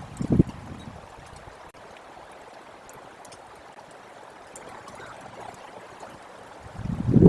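Wind buffeting the microphone: a short gust right at the start, then a faint steady rushing hiss, then a louder gust building near the end.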